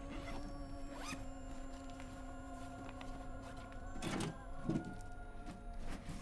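Soft background music of steady held tones, with a few brief rustling or scraping noises about a second in and twice around four seconds in.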